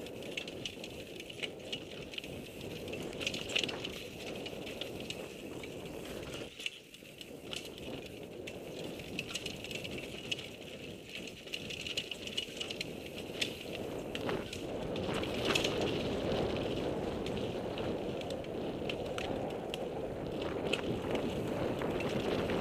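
Mountain bike descending a dirt trail, heard from a helmet-mounted camera: a steady rumble of tyres on dirt and rushing air, with frequent clicks and rattles from the bike over bumps. The noise drops away briefly about seven seconds in and is louder over the last third.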